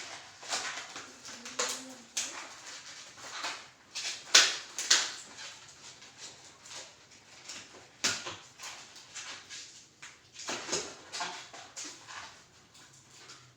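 Long modelling balloons being squeezed and rubbed, giving a string of squeaks and rustles, with two sharp loud bursts of popping balloons about four and five seconds in.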